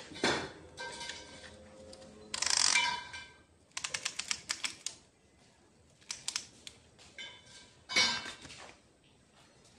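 Metal hand tools and engine parts clicking and clinking during assembly of a Hino J08E diesel engine. Several ringing metal knocks, a quick run of light clicks about four seconds in, and a sharp knock near the end, the loudest of them.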